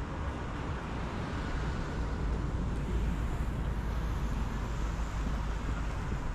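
Steady low rumble of road traffic, slightly louder from about two seconds in.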